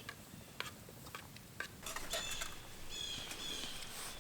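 A few short, high chirps from a small wild animal, with a quick trill about three seconds in, among scattered light clicks.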